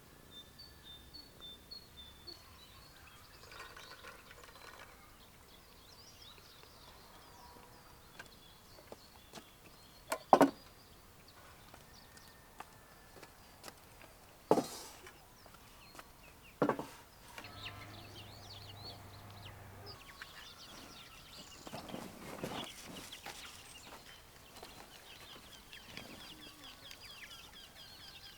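Farmyard ambience: birds chirping and chickens clucking, broken by three sharp knocks spaced through the middle.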